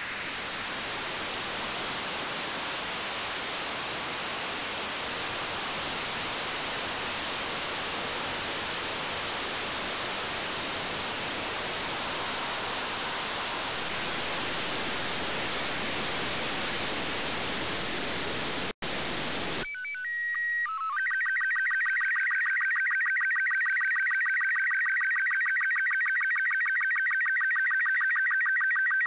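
FM receiver static: steady hiss from an RTL-SDR tuned to the LAPAN-A2 (IO-86) 435.880 MHz downlink. About twenty seconds in, the hiss cuts off as a signal comes in, and slow-scan TV (SSTV) tones begin: a brief header of steady tones, then the fast repeating warble of image lines being sent.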